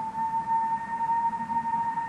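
Steam locomotive whistle sounding one long steady note over the low rumble of the passing train.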